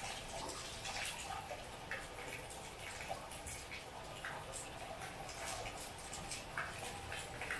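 Rain falling: a steady hiss with close drops dripping and tapping irregularly, several a second.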